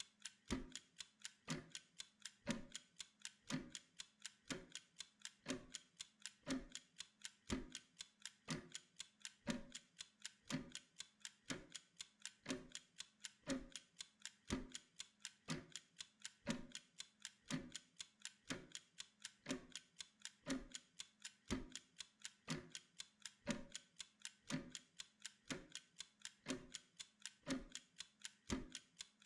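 Mechanical kitchen timer ticking in a fast, even rhythm.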